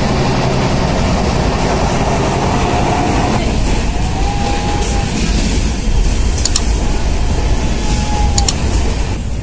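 Passenger train running along the line, heard from inside the coach by the doors: a loud, steady rumble of wheels and rails, with a few sharp clicks in the second half.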